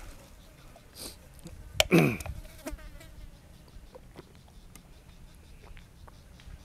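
Close-up eating sounds: scattered clicks of chewing and lip-smacking on squid and fresh vegetables. About two seconds in comes one louder smack and a short falling vocal sound.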